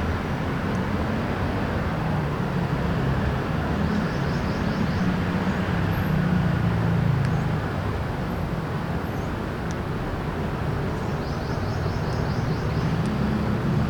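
Steady urban traffic hum, a low continuous rumble of road vehicles. A faint, rapid high ticking comes in twice.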